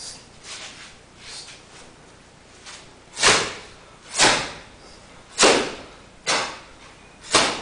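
Open-hand strikes slapping a karateka's bare body during Uechi-ryu Sanchin kitae conditioning: five sharp slaps about a second apart in the second half, after a few softer sounds.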